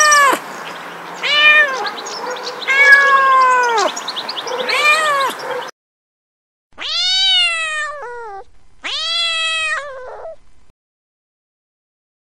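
Kittens meowing: a run of about six high meows a second or two apart, each rising then falling in pitch, the last two longer and drawn out.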